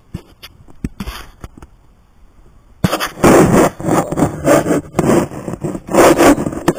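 Handling noise on the camera's microphone: a few faint clicks, then from about three seconds in loud, irregular bursts of rubbing and scraping as the camera is shifted against the telescope eyepiece.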